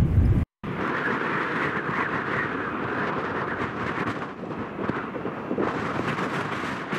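Embraer 175 airliner's twin General Electric CF34 turbofans at takeoff power, a steady jet roar heard from behind as the aircraft rolls away down the runway. A low wind rumble on the microphone at the very start stops with a brief dropout about half a second in.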